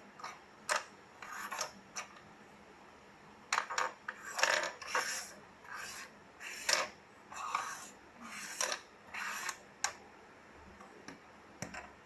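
Small plastic Rubik's Cube pieces being picked out and set down by hand, with irregular clicks and short rattles as they knock against each other and the table.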